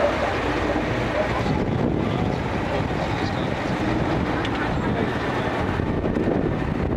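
Six-wheeled off-road trial truck's engine running steadily under load as the truck climbs a steep dirt bank.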